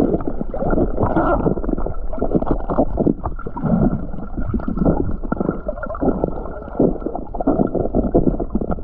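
Muffled underwater sound from a camera held just below the surface in shallow water: dull, irregular sloshing and gurgling of water against the camera housing.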